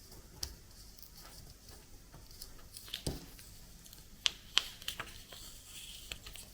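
Light handling noise of washi tape and a small 3D-printed plastic cutter: scattered sharp clicks and taps with faint rustling, the loudest few about three and four and a half seconds in.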